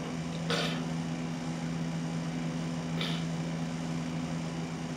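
Steady low machine hum in the room, with short breathy exhalations about two and a half seconds apart, in time with slow side bends.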